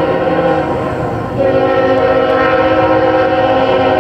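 Norfolk Southern freight locomotive's air horn sounding a chord of several notes for a grade crossing, eased off briefly about a second in, then blown again louder.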